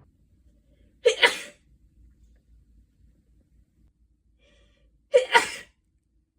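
A woman sneezing twice, about four seconds apart, each sneeze a sharp two-part burst, with a short catch of breath just before the second. The sneezes come from allergic rhinitis.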